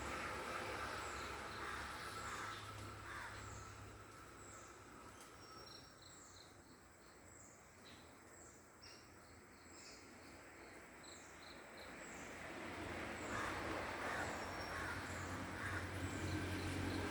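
Outdoor ambience with a high, short chirp repeating about once a second, and a quicker run of chirps around the middle. A low rumble grows louder in the last few seconds.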